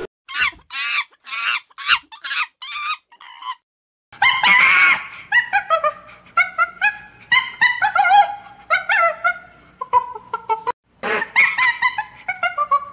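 Monkey calls edited one after another: about six short, high-pitched calls in quick succession, a brief pause, then a long run of rapid, high chirps and squeals from a silver marmoset.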